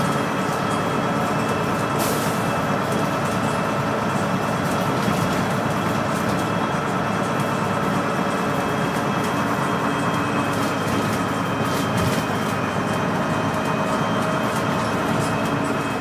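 Bristol VRT double-decker bus heard from inside the lower deck while driving: steady engine and drivetrain running with a thin steady whine and body rattles, and a brief sharp rattle about two seconds in.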